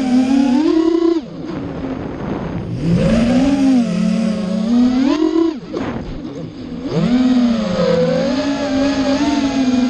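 FPV racing quadcopter's brushless motors (Skytzo 2204 2500 kV) and 5-inch tri-blade props whining, the pitch rising and falling with the throttle. The sound drops away sharply twice, about a second in and again around five and a half seconds, then surges back up, as the throttle is chopped and punched during freestyle manoeuvres.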